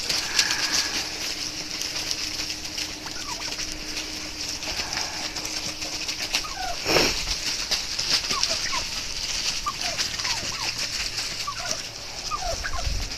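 Turkeys making many short, soft calls that slide in pitch, scattered through the flock as they feed, with one louder burst about seven seconds in.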